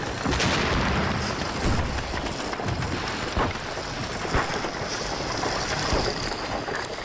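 Lava entering seawater underwater: a continuous crackling, hissing rumble broken by several sharp cracks as the molten rock is chilled and shattered by the cold water.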